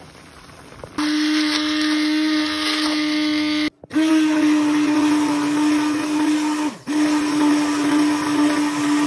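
Hand-held immersion blender running in a saucepan, pureeing boiled stinging nettle leaves into a green paste. It gives a steady motor hum that starts about a second in, cuts out for a moment a little before the middle, dips once more later on, and stops at the end.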